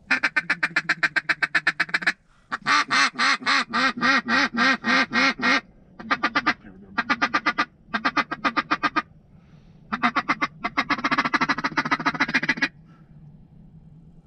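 A duck call blown in six loud runs of fast, repeated quacks, several a second, with short pauses between runs.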